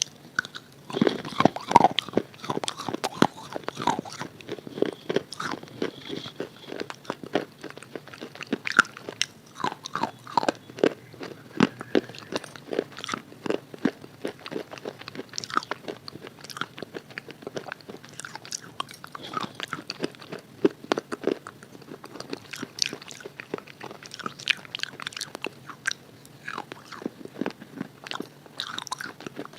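Someone biting into and chewing a crunchy red chalk bar coated in red chalk paste. It gives a run of crisp, irregular cracking crunches close to the microphone.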